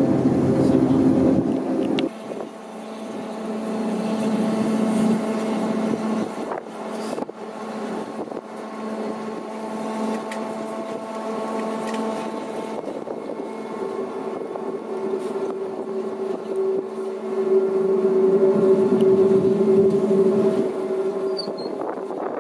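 Train running: a steady machine hum and whine made of several held tones over a noisy rush. The first two seconds carry a heavier rumble, and the hum grows louder again in the latter half.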